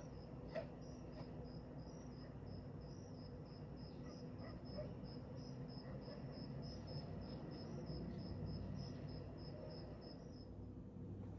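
A steady train of short high-pitched chirps, about three a second, over a faint low hum; the chirping stops shortly before the end.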